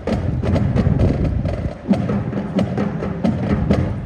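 Marching band playing: sustained wind and brass over a steady beat of sharp percussion hits.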